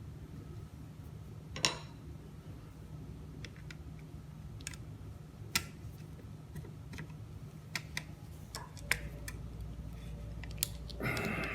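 Scattered small sharp clicks and taps, a few seconds apart, from tools working on the small metal and plastic parts of a Technics SL-3300 turntable's tone-arm mechanism, ending with a short scrape. A steady low hum runs underneath.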